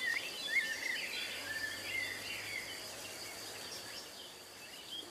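Birds chirping, mostly in the first three seconds, over a steady high-pitched insect drone.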